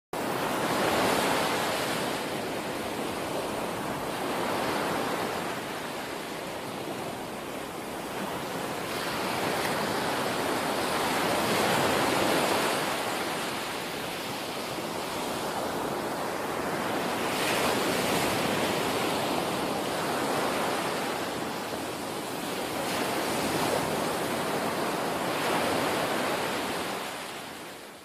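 Ocean surf: waves breaking and washing in, a continuous rush that swells and eases every few seconds and fades out near the end.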